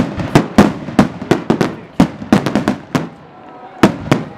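Aerial fireworks shells bursting in a rapid, irregular run of sharp bangs, several a second, with a short lull about three seconds in before the bangs start again.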